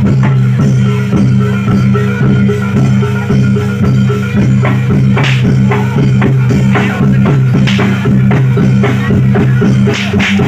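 Live reog and jaran dor ensemble music: fast, even drumming over sustained low tones, with a brighter jangling stroke about halfway through and again near the end.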